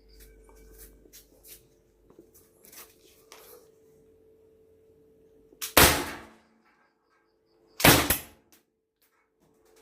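Two air rifle shots about two seconds apart, each a sharp crack that dies away quickly, after a few seconds of faint clicks from handling the gun.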